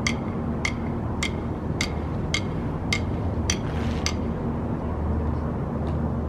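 Electronic metronome beeping a steady marching tempo, a little under two sharp ticks a second, keeping the beat for foot drill. Seven ticks sound and then stop about halfway through, over a steady low background rumble.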